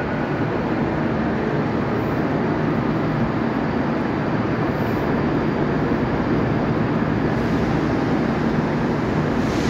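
Steady rumble of a large railway station's platform area, with trains running on the tracks below.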